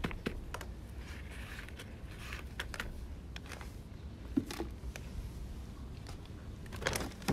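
Faint scattered clicks and light rustling of hands weeding a potted eggplant, pulling out weeds and dry hay mulch and working the potting soil.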